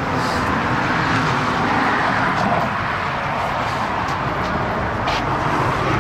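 Steady road traffic noise, cars going by.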